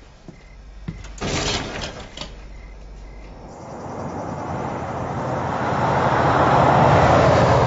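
A road vehicle approaching, its rushing noise swelling steadily over several seconds and loudest near the end. A short clatter comes just over a second in.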